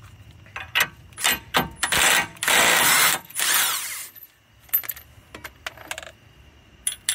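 Impact wrench run in a few short bursts and then a longer stretch, spinning off the nut used to pull the new wheel stud into the hub, followed by light metallic clinks of the loose nut and parts.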